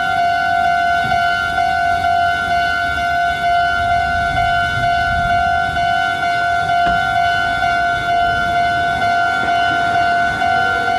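Railway level-crossing alarm ringing, a high electronic tone pulsing steadily without a break, while a Meitetsu 2000-series electric train comes nearer with a low rumble underneath.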